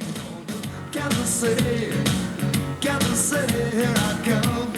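Background music: a rock and roll song with singing over a steady beat.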